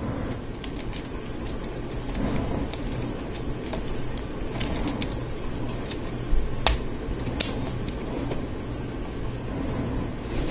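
Small plastic clicks and rattles of Lego Technic axles and gears being handled and pushed into a liftarm, with two sharper clicks about two-thirds of the way through, over a steady low background hum.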